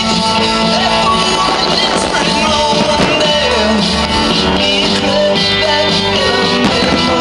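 Music: a song with a singer over a full band, playing loud and steady.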